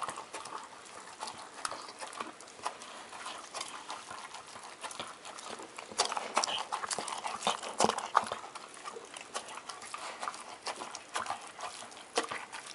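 Large black dog eating wet food from a stainless steel bowl: quick, wet chomping and licking, louder from about six seconds in.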